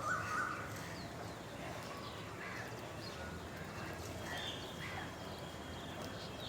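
Several wild birds calling: scattered short chirps and calls, with a thin held whistle from about two-thirds of the way in, over a steady low background rumble.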